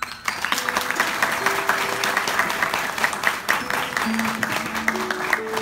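Audience applauding, a dense clatter of many hand claps, with a few soft held music notes coming in underneath and growing stronger near the end.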